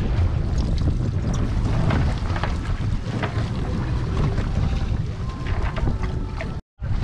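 Wind buffeting the microphone over a steady low rumble of water against the boat's hull, with a few faint small splashes and clicks. The sound drops out for an instant near the end.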